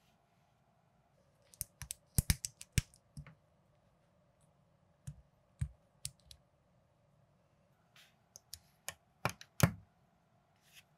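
Small plastic building bricks and minifigure parts clicking and snapping together by hand, in three bursts of sharp clicks, the loudest near the end.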